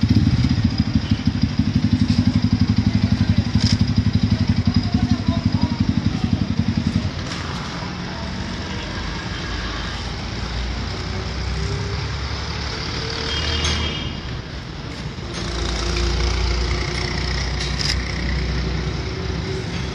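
A motorcycle engine idling close by with a fast, even putter, cut off suddenly about seven seconds in. After that, road traffic runs on, swelling into a louder low rumble about three-quarters of the way through.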